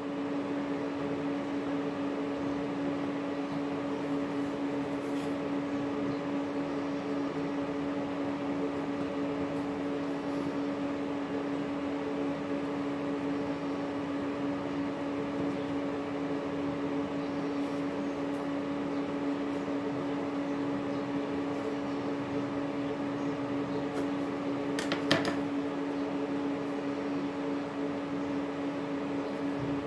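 Steady hum of a kitchen appliance motor or fan, one constant low tone with overtones, with a brief clatter about 25 seconds in.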